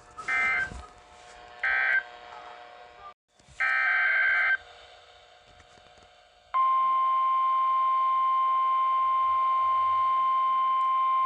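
NOAA weather radio sending Emergency Alert System (SAME) digital data: short buzzing data bursts about a second apart, then a longer burst a few seconds in. About six and a half seconds in, the steady 1050 Hz weather radio warning alarm tone starts and holds, announcing a new warning.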